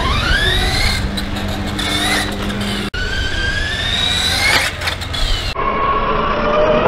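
Radio-controlled car's motor whining up in pitch again and again as it accelerates across concrete. Its run is broken abruptly about three seconds in.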